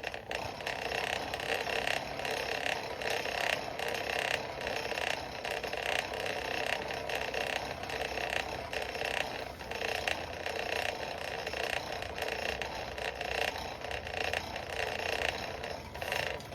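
Coal forge blower running steadily, forcing air through the fire pot as a bar is heated; it starts and stops abruptly.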